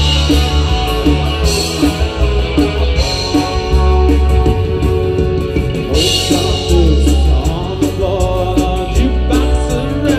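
Live rock band playing a song: electric guitar, bass guitar, drums and keyboard over a steady beat.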